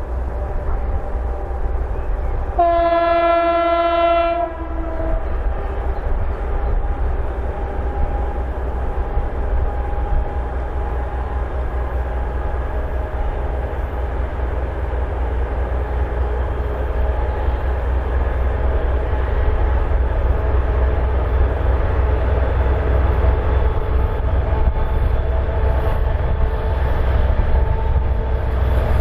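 A 2M62U twin-section diesel freight locomotive, its two-stroke diesel engines running with a steady low rumble that grows louder as it approaches. About three seconds in it sounds its horn once, a single steady tone lasting about two seconds.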